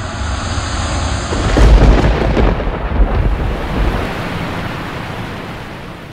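Deep, thunder-like rumbling boom of a logo-intro sound effect, swelling to its loudest about two seconds in and slowly dying away.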